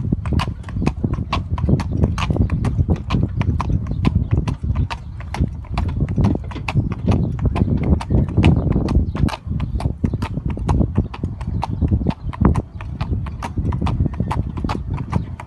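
Hooves of a palomino Andalusian horse clip-clopping on an asphalt road as it pulls a single carriage, a steady run of about four hoof strikes a second over a low steady rumble.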